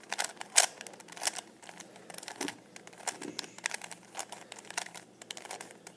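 Plastic speed cube being twisted quickly by hand: its layers turning in a quick, uneven run of clicks and clacks.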